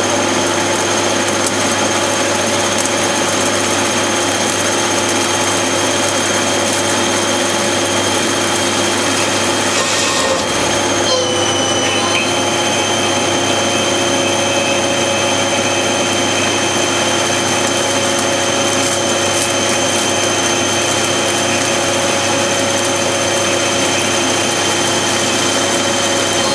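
Haas TL2 CNC lathe running, its spindle and drives giving a steady whine made of several tones. About eleven seconds in, the whine dips briefly and then settles a little lower in pitch.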